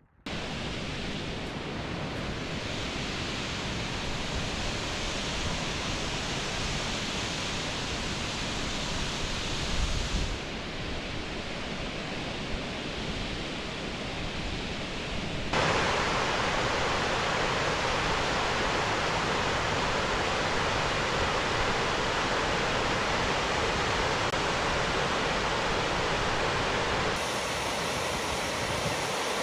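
Steady rushing water of a waterfall pouring into a rocky gorge, heard in several joined clips: the sound changes abruptly about 10 seconds in and gets louder and fuller about 15 seconds in.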